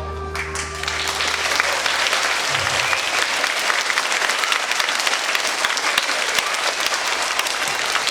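Audience applauding: dense, steady clapping that starts within the first second as the tail of a piece of music fades out.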